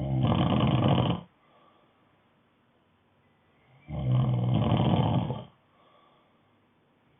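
Snoring: two loud snores, each lasting about a second and a half, about four seconds apart, with a low buzzing pitch and quiet gaps between them.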